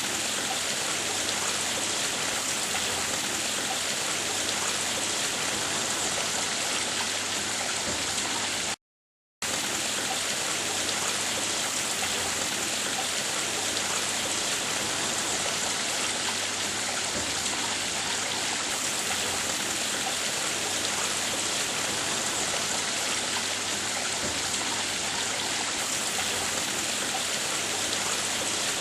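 Water splashing steadily over a garden pond waterfall. The sound cuts out completely for about half a second about nine seconds in.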